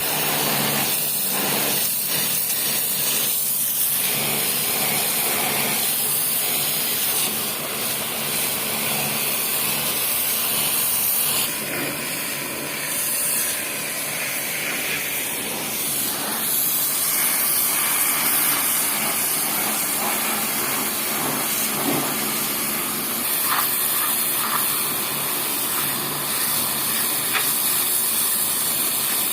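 Pressure washer (water jet machine) running, its jet spraying with a steady loud hiss over the hum of the machine.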